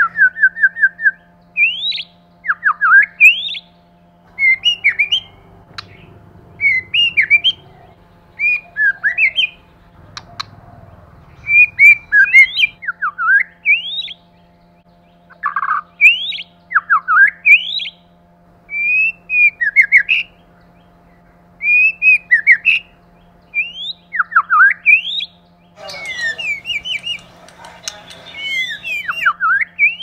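White-rumped shama singing: short phrases of clear whistled notes that slide quickly up and down, one phrase every second or two, growing busier near the end. A faint steady hum runs underneath.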